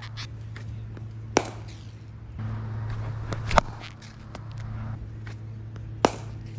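Cricket bat striking the ball three times, each a sharp crack about two and a half seconds apart, over a steady low hum.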